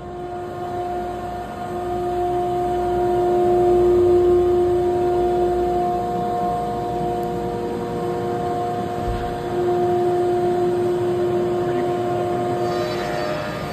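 Slab-flattening machine running: a steady mechanical whine with a few held pitches over a noisy rush. It swells over the first few seconds as the door to the shop opens, then stays loud.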